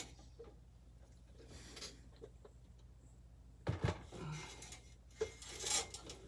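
Handling noise from computer parts and case being worked on: scattered small clicks, two sharp knocks close together a little past the middle, then a scraping rustle near the end.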